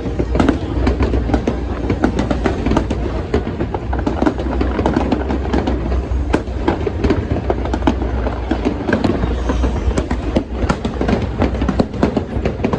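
Fireworks display in a dense barrage: many sharp bangs and crackles packed closely together over a constant low booming.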